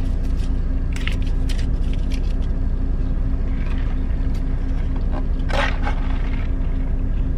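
Steady low drone of an idling semi truck with its cab air conditioning running, with a few short rustles and clicks of food being handled, the loudest a little past halfway.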